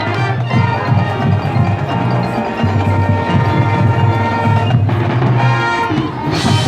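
Marching band playing, with mallet percussion such as marimba or xylophone ringing over strong sustained low notes.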